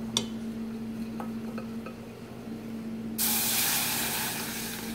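A wooden spatula stirs a flour roux in a small saucepan, with a few light taps. About three seconds in, white liquid is poured onto the hot roux and it sets off a sudden loud sizzling hiss that slowly dies down.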